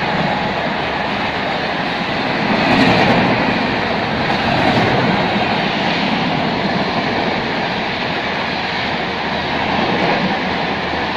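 Humsafar Express passenger coaches running past along the platform: a steady, loud rush of wheel and rail noise.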